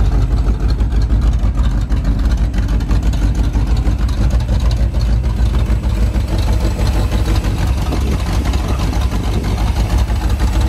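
Carbureted V8 engine running steadily at idle, loud and low. The owners suspect its timing is way off and that it is down a couple of cylinders.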